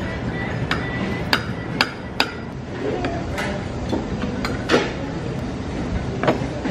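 Metal spoons and chopsticks clinking against ceramic bowls and plates while eating, a few sharp clinks scattered irregularly over a steady background hum.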